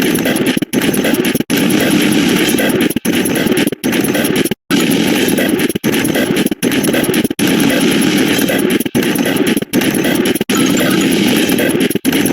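A rapid-fire stream of synthetic sound effects, one per number, piling into a continuous harsh buzz. It breaks off for a split second about every 0.8 seconds, with one longer break near the middle.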